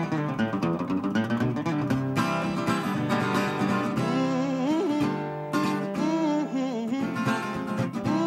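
Solo acoustic blues guitar, plucked, with a man singing along from about four seconds in.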